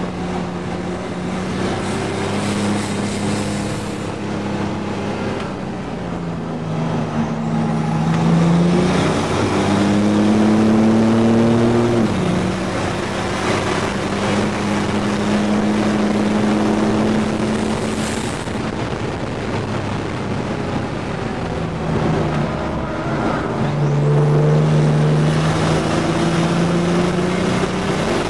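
GMC Syclone's turbocharged 4.3-litre V6 under hard acceleration, heard from inside the cab with road and wind noise. The engine pitch climbs and falls with throttle and gear changes, rising steeply and dropping sharply at a shift near the middle, then climbing again later.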